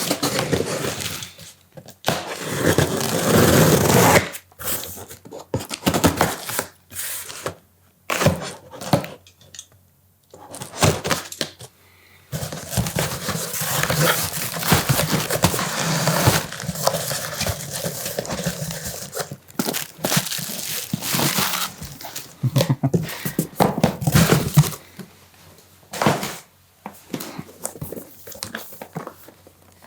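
Keyboard box and packaging being opened and handled: irregular bursts of handling noise with short pauses and occasional sharp knocks, growing sparser near the end.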